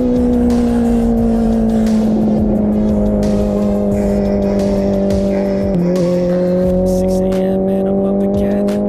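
Honda CBR650R inline-four engine running through an IXIL full exhaust system with the dB killer removed, at steady high revs that ease down slowly, then a quick drop in pitch about six seconds in, as on an upshift, after which the note climbs again under acceleration. A low wind rumble sits underneath.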